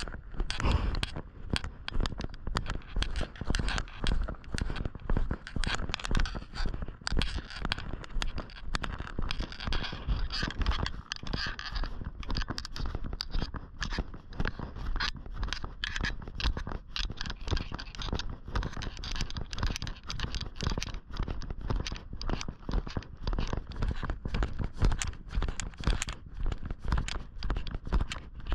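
Footsteps crunching and scraping on a trail, a steady run of irregular crunches.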